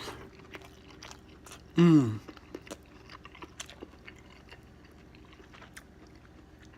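A person chewing a mouthful of egg-white pizza, with soft wet clicks from the mouth throughout. About two seconds in comes a short hum that falls in pitch.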